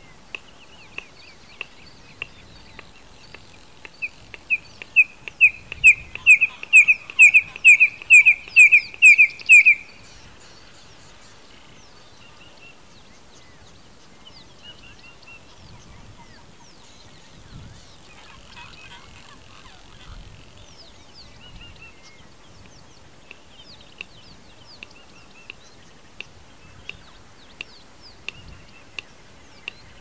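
Bustard's song: a run of dry clicks that quickens, then about fifteen loud piping whistles at a steady pace of two or three a second, ending abruptly about ten seconds in. Scattered faint ticks and clicks follow.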